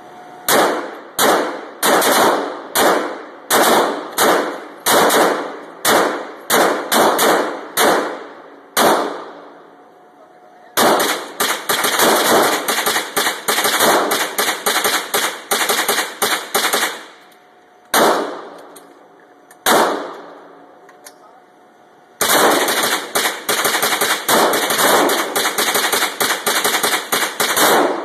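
Semi-automatic gunfire. First comes a string of about eighteen single shots, two to three a second. Then a long, fast volley, two lone shots, and another fast volley near the end.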